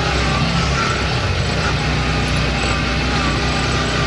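Off-road buggy's engine running steadily as it drives along a dirt track, under a steady rushing noise.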